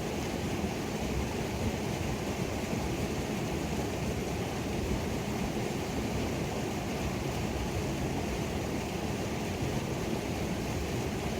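Creek waterfall pouring steadily: an even, unbroken rush of falling water with a deep rumble.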